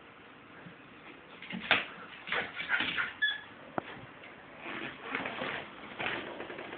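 A small dog playing with a toy: scattered knocks and scuffles, the loudest a sharp knock a little under two seconds in, with a brief high squeak about three seconds in.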